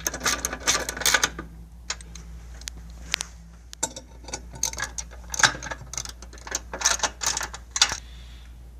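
Socket ratchet clicking in quick runs as bolts are tightened with a 1/2-inch socket. One run comes at the start, then a pause, then a longer run from about four seconds in that stops near the end.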